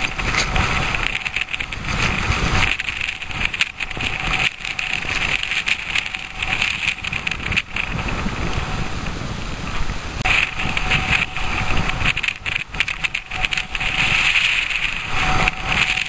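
Wind buffeting the microphone of a camera carried down a snowy slope: a rough rumble with irregular crackles, its hiss swelling about ten seconds in and again near the end.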